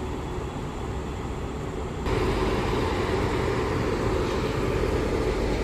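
WAP-7 electric locomotive standing at the platform, giving off a steady machinery hum that grows louder about two seconds in.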